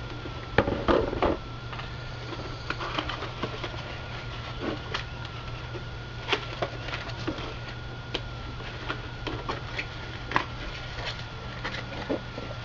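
Plastic housing of a truck's power-extending towing mirror knocking and clicking as it is lifted, turned over and set down on a workbench: scattered short knocks, loudest in a cluster about a second in, over a steady low hum.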